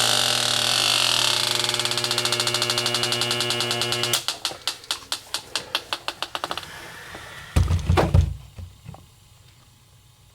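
Bacharach H10 electronic refrigerant leak detector alarming with a rapid electronic beeping; after about four seconds the beeps slow and fade away, followed by a few dull thumps near eight seconds.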